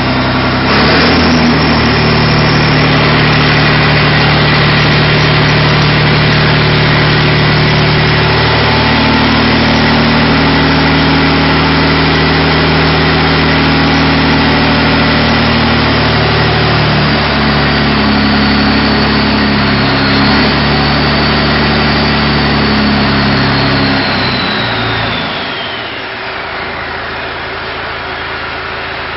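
Engine of a homemade slurry pump rig, just started and running steadily and smoothly. About 25 seconds in, the sound drops away and a high whine falls in pitch as the engine slows.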